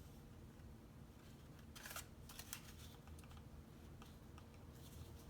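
Near silence with a few faint clicks and rustles from handling cardstock paper-rose petals, a small cluster about two seconds in and a couple more near the end.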